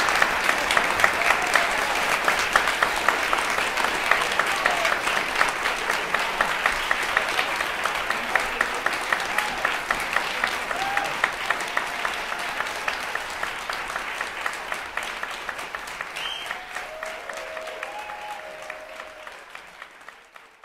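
Concert audience applauding, a dense, steady patter of clapping with a few voices calling out, gradually fading out toward the end.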